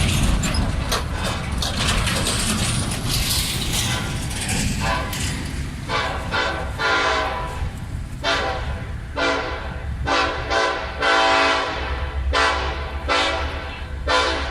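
Kansas City Southern de México SD70ACe diesel locomotive passing with a low engine rumble and rail noise; from about six seconds in its air horn sounds a long run of short blasts, about one a second, in a horn show.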